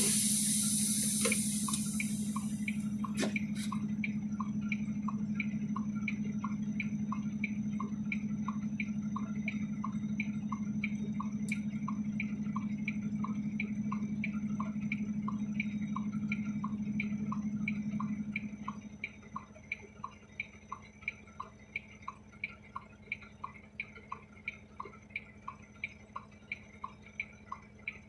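Vehicle indicator flasher ticking steadily in a truck cab, about three ticks every two seconds. Under it a steady low hum drops much quieter about two-thirds of the way through, and a hiss fades out in the first two seconds.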